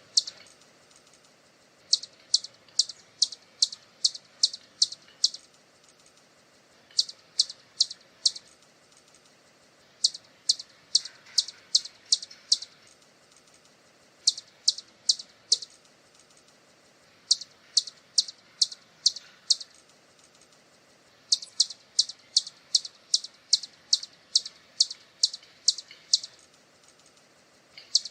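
Hummingbird calling: runs of short, sharp, high-pitched chips, about three a second. Each run lasts one to several seconds, with pauses of under two seconds between runs.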